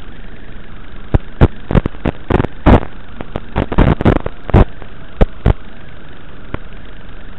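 Steady hiss on an FPV drone's onboard audio feed, broken by an irregular run of about fifteen loud sharp pops and crackles between about one and five and a half seconds in.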